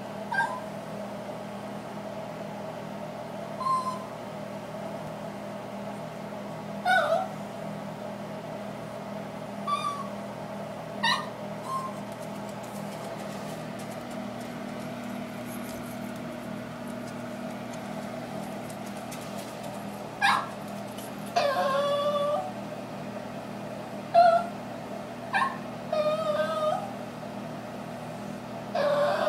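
Dog whining: short, high whimpers every few seconds, coming more often after about twenty seconds, with a few longer wavering whines.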